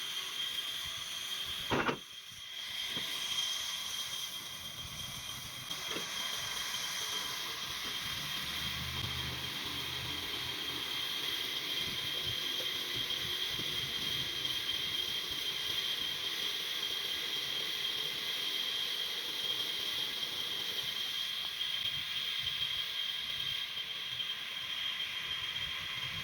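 Sawmill machinery running steadily: an even hiss with a thin, high, constant whine, and one sharp click about two seconds in.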